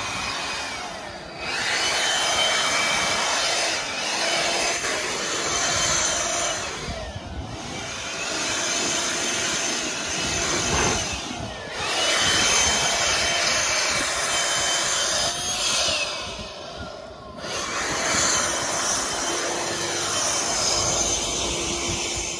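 Handheld electric blower run in bursts of several seconds, a rush of air with a motor whine that rises as it spins up and falls away in the short pauses between bursts.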